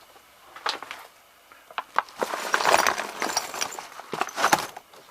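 Small plastic and metal electrical connectors being handled and rummaged in a box: separate clicks, then a stretch of rattling and rustling with more clicks.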